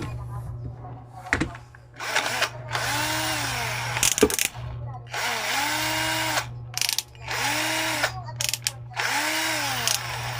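Chinese-made 12V cordless drill run in about five short bursts. Each time, the motor whine rises as it spins up, holds steady for a second or two, then falls away as it winds down.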